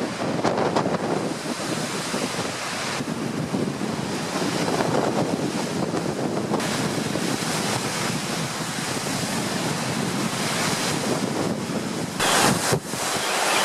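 Storm waves on a lake breaking and splashing against a promenade wall, with gale-force wind gusting across the microphone. A louder burst comes near the end.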